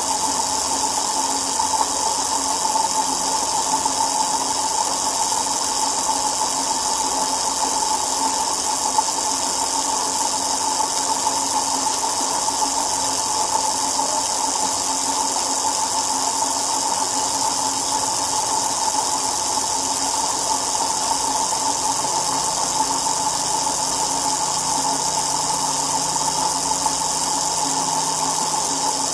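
A steady mechanical hum and whir that stays at one pitch throughout, from a wheel kept spinning at constant speed.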